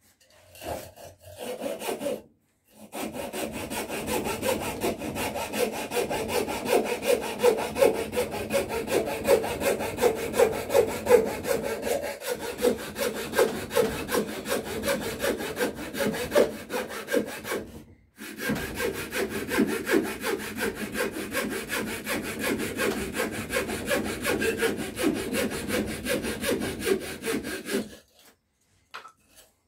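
Coping saw cutting through a piece of cedar with quick, even back-and-forth strokes. It pauses briefly about two-thirds of the way through, then saws on and stops shortly before the end.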